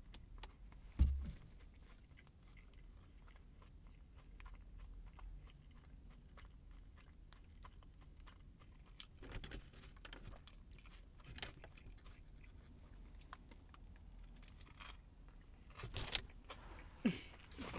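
Close-up chewing of a turkey sandwich with shredded lettuce: soft, wet mouth clicks with a light crunch. A single low thump about a second in, and a few louder clicks near the end.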